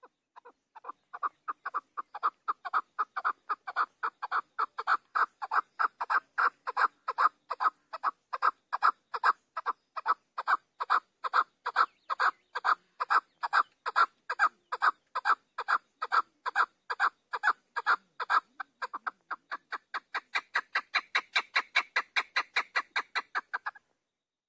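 Chukar partridge calling: a long, even series of short clucking notes, about three a second, growing louder over the first couple of seconds. Near the end the notes turn higher and quicker, then stop.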